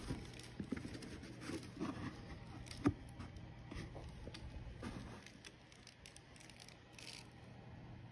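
Hands handling a new leather logger boot over kraft packing paper: scattered rustles, rubs and light knocks, with the sharpest knock about three seconds in. The sounds thin out after about five seconds.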